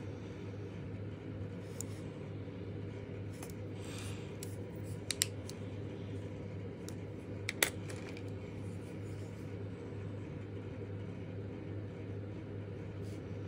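A few sharp plastic clicks as gel pens are put down and picked up in a pen swap: two close together about five seconds in and a louder one a couple of seconds later. A steady low hum runs underneath.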